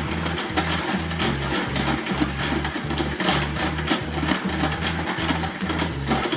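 Small toy washing machine motor whirring with a dense rattle, over background music with a steady, stepping bass line.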